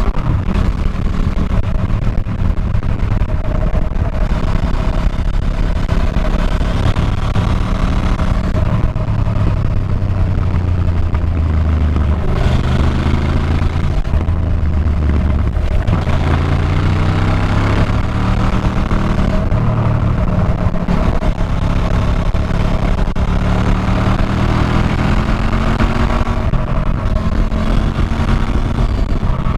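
Motorcycle engine heard on board while riding, its pitch dropping about a third of the way in and then climbing again in steps through the gears, over a steady rush of wind and road noise.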